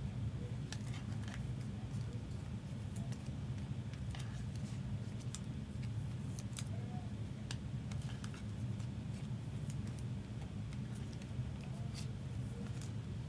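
Scattered light clicks and soft rustles of trading cards being handled and slid into plastic sleeves and a case, over a steady low hum.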